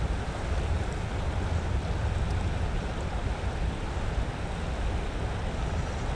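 Steady rushing of a flowing river over riffles, with wind buffeting the microphone as a low rumble.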